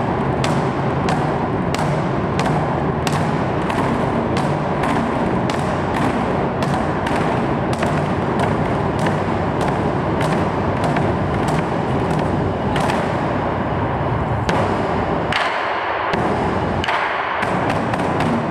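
Several large Chinese barrel drums beaten with wooden sticks in a steady beat of about two strokes a second, the strokes running together into a continuous low rumble. Near the end the strokes come faster.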